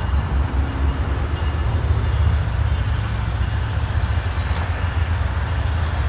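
Low, steady rumble of an approaching diesel-hauled intermodal freight train, led by GE Dash 9-40CW and Dash 8-40CW locomotives.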